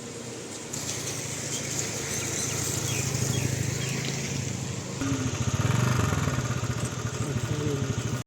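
A motor vehicle engine running, with a steady hiss over it; the sound changes abruptly about five seconds in and gets louder.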